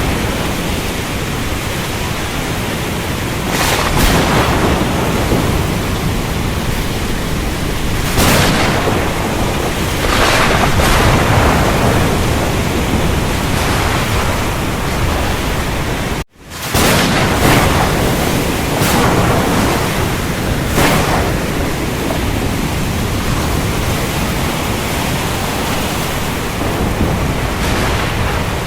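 Thunderstorm: steady heavy rain with swells of thunder every few seconds. The sound cuts out for a split second about halfway through.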